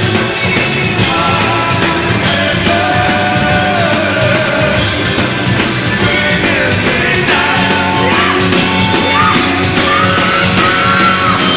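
Hard rock band playing live: electric guitar, bass and drums at full volume, with bending lead lines in the second half.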